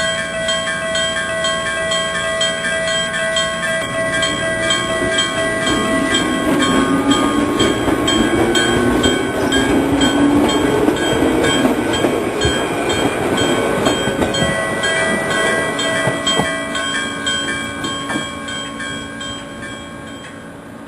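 Japanese railway level-crossing warning signal ringing in evenly repeated strokes while a train passes over the crossing. The train's rumble and a rising whine swell from about four seconds in and die away by about seventeen seconds, and the sound tails off near the end.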